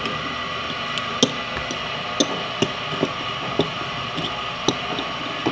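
Light, irregular clicks and taps of plastic toy ponies being handled and set down on a wooden table, about seven in all, over a steady background hiss.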